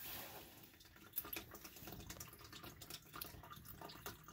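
Used engine oil draining from the oil pan's drain plug and pouring into a plastic tub, a faint trickle with many small irregular drips and splashes.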